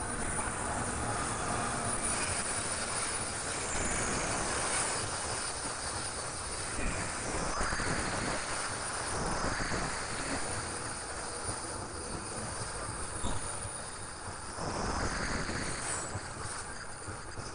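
A train moving along the track: a steady rushing noise with faint high squeals now and then.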